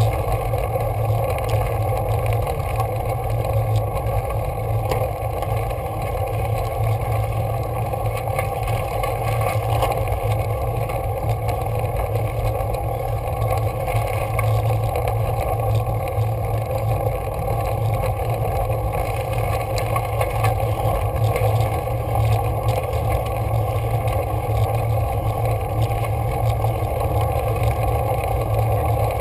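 Steady rumbling wind and road noise on a bicycle-mounted camera's microphone while riding a steep climb, with no clear changes.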